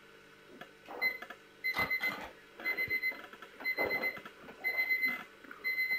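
Electronic alarm clock beeping: a quick run of high beeps about once a second, with rustling as someone shifts on a sofa.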